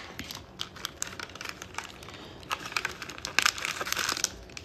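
Torn trading card pack wrapper crinkling and crackling in the hands as the cards are slid out and handled, a run of small irregular clicks and rustles.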